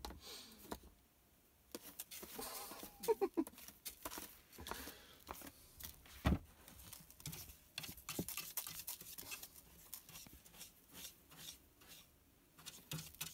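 A cat scratching and digging in cat litter in an open litter tray, with granules scattering and pattering in quick, irregular scrapes and clicks. One louder thump comes about six seconds in.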